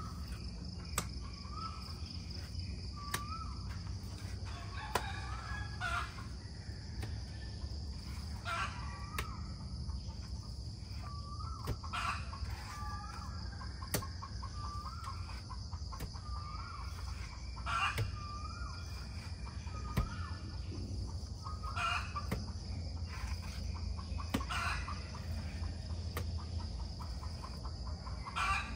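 Chickens clucking and calling in repeated short notes, over a steady high insect drone.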